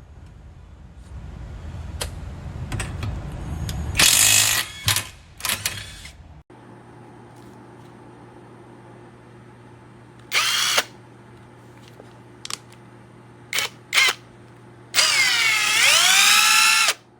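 AOBEN 21V cordless impact wrench run in several short trigger pulls, then held for about two seconds near the end, its motor whine dipping and climbing in pitch. Early on there is a rising rumble with a few loud bursts.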